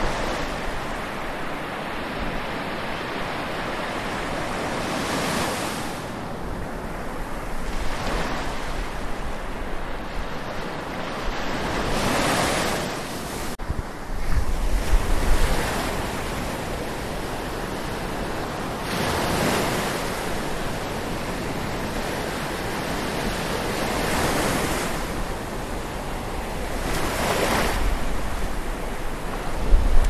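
Atlantic Ocean waves washing onto the shore, surging and falling back every three to five seconds. Wind rumbles on the microphone now and then, most strongly about halfway through and at the very end.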